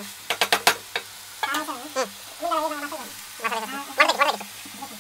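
A metal spatula stirring sea snail meat and chopped vegetables as they fry in an aluminium pot, knocking against the pot several times in quick succession in the first second, then scraping along the metal in three bouts.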